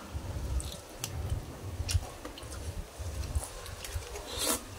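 People chewing and slurping a soupy bamboo-shoot curry, with several sharp clicks scattered through it, such as metal spoons knocking against the metal serving tray.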